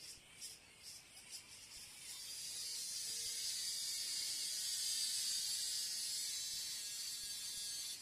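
A cicada singing: a few short, high-pitched buzzing pulses about twice a second, then a steady, loud, high-pitched buzz lasting about six seconds that cuts off abruptly.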